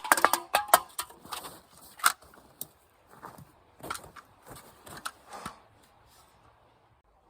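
A string of sharp clicks, clinks and knocks from hard objects being handled, thickest in the first second and thinning out until they stop about six seconds in.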